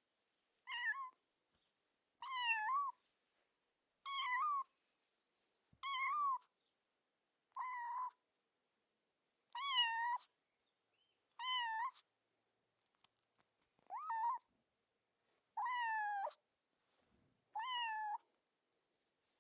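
A kitten meowing repeatedly: ten short, high-pitched meows, about one every two seconds, each rising and then falling in pitch.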